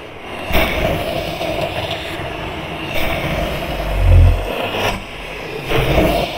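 Wooden chair legs being moved and scraped across wooden floorboards, picked up through the floor by a Metal Marshmallow Pro contact microphone, with deep bass thumps that swell loudest about four seconds in.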